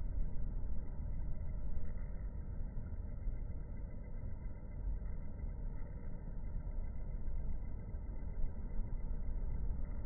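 Low, steady background rumble with no distinct events.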